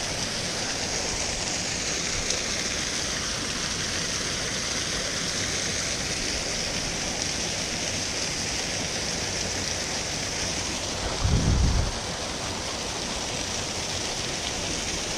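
Small fellside waterfall splashing down a rocky gill: a steady rush of falling water. About eleven seconds in there is a short low thump.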